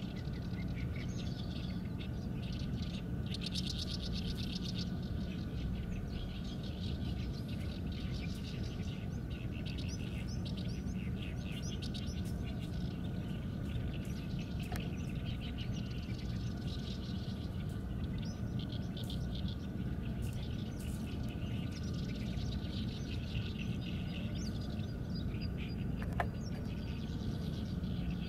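Small birds chirping and trilling again and again in short bursts, over a steady low background rumble.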